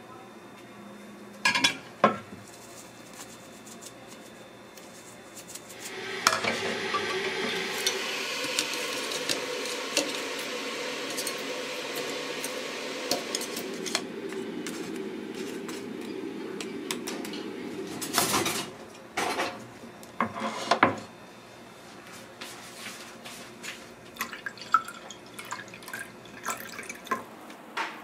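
Kitchen sounds: two knocks of a spatula on a plate near the start, then about twelve seconds of steady sizzling from dumplings pan-frying. After that come a few clatters of dishes, and near the end light clicks of chopsticks on a plate.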